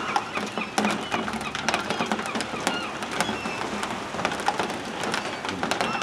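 A flock of gulls calling over one another as they circle, many short cries overlapping throughout, with scattered sharp clicks.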